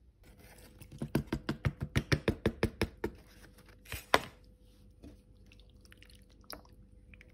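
Cut plum tomatoes plopping off a paper plate into crushed tomato sauce in a crock pot: a quick run of wet squelching taps for about two seconds. A wooden spoon then stirs the sauce, with one louder knock about four seconds in.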